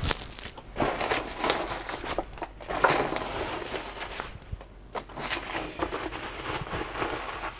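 Hands scooping and rummaging through foam packing peanuts in a cardboard box: an uneven crinkly rustling with many small crackles, rising and falling in bursts as each handful is moved.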